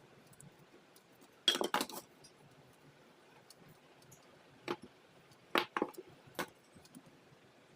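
Kitchen utensils and dishes clinking: a quick cluster of clatters about one and a half seconds in, then a few separate single knocks in the second half.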